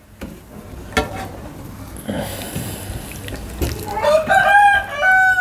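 A rooster crowing once, a long stepped call starting a little under four seconds in, after a single sharp click.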